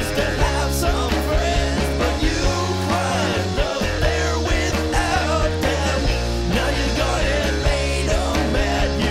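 Rock music with a steady beat and bass line, used as a soundtrack.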